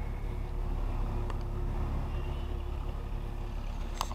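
Steady low rumble of road traffic from a nearby city street, with a faint engine hum. One click about a second in and a few sharp clicks near the end.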